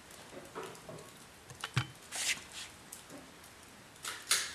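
Handling noise: light rustling with a few soft clicks and scrapes, including a sharp click a little under two seconds in and short hissy rustles near the middle and near the end.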